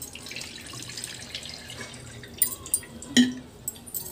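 Water poured over poha (flattened rice) in a steel colander, splashing and trickling through the flakes into the pot below. A few sharp knocks come between two and three seconds in, the loudest near the end.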